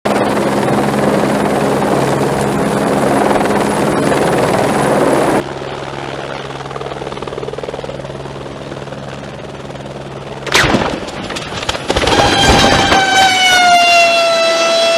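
Light turbine helicopter hovering close overhead, its rotor and engine running steadily; the sound drops to a lower, duller level about five seconds in. About ten and a half seconds in comes a sharp crash as it hits the ground, followed by a loud high-pitched whine with several overtones that sags slightly in pitch and then holds.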